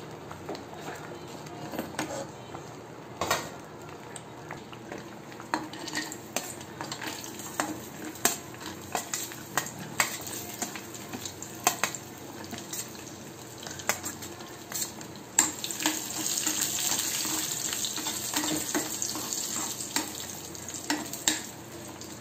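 A metal spoon clinks and scrapes against a pan while nuts are stirred in ghee. About fifteen seconds in, a sizzle rises and runs for about five seconds as the nuts fry in the hot ghee.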